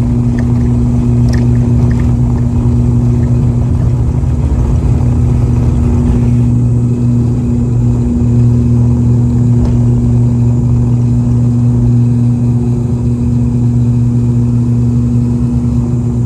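Inside the passenger cabin of an ATR 42-600 during takeoff: the Pratt & Whitney PW127 turboprops and their propellers make a loud, steady drone with a deep hum and a second, higher hum above it, over rushing noise.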